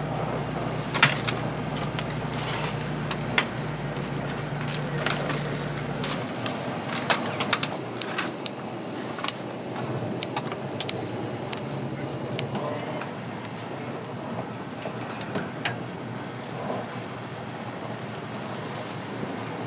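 Wood-fired chicken rotisserie by a street: a steady sizzling, crackling hiss with traffic behind it, and scattered sharp metal clicks and clacks from tongs, scissors and spits as roast chickens are pulled and cut. A low hum drops out about six seconds in.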